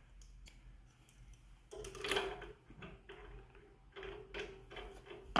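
Scattered light clicks and taps of small parts being handled at a pressure washer's brass pump head, the loudest about two seconds in.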